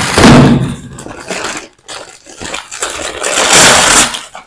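Brown paper courier mailer bag being torn open and rustled by hand: loud crackling and tearing in irregular bursts, strongest near the start and again about three and a half seconds in.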